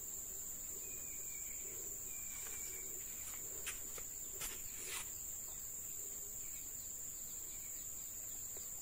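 Insects droning steadily on one high pitch, with three faint clicks about halfway through.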